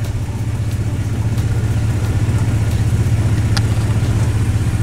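Van engine idling, heard from inside the cabin: a steady low drone with an even pulse, and a single light click about three and a half seconds in.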